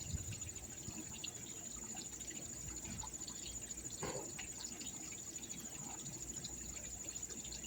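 Insects chirring in a steady high-pitched trill, with faint trickling water underneath.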